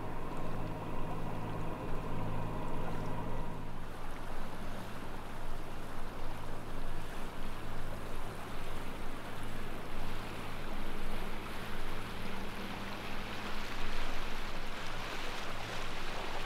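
A sailing yacht's engine running steadily as the boat motors along, with water rushing past the hull. About four seconds in, the engine's higher hum drops away and the rush of water becomes the main sound over a low, steady drone.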